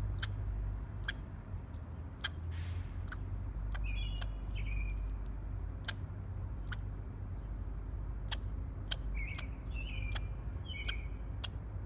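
A squirrel eating and chirping: sharp clicks come every half second to a second, with two clusters of short, high, slightly falling chirps, the first about four seconds in and the second around nine to eleven seconds. A steady low rumble runs underneath.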